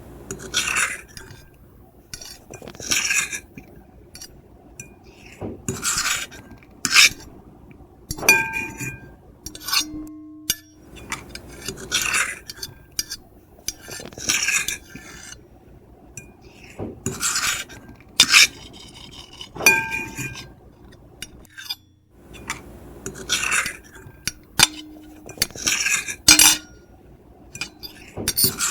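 Metal fork and knife scratching and scraping across a plate in short strokes every second or two, with occasional clinks where the plate rings briefly.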